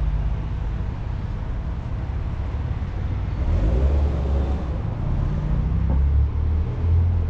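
Street traffic: motor vehicle engines running close by with a steady low rumble, a little louder from about halfway through.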